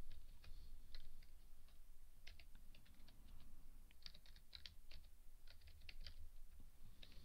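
Typing on a computer keyboard: several short runs of quick keystrokes with brief pauses between them.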